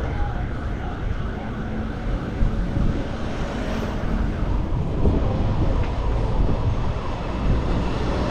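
Street traffic: the engines of motor vehicles running and passing close by, a continuous low rumble.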